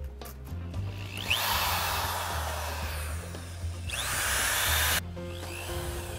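Electric drill with a twist bit boring a pilot hole through the sheet-metal back wall of a truck cab, in two runs: the first from about a second in, then after a brief pause a louder run that stops sharply about five seconds in, each spin-up a rising whine. Background music plays underneath.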